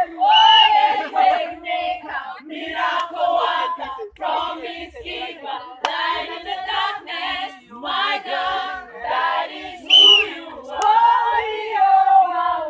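People singing together, with held notes and short phrases throughout.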